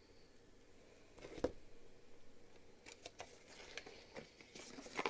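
Faint handling of packaging and small accessories being taken from a box: a soft thump about a second and a half in, then scattered light clicks and rustles.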